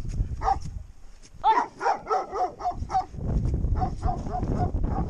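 A dog yipping and barking in a rapid series of short, high calls, with softer yelps later on, over a low rumbling noise.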